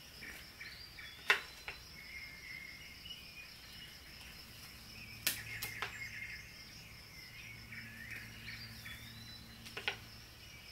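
Quiet background of birds chirping and a steady, high insect-like trill, broken by a few sharp clicks of oracle cards being handled and swapped in the hands.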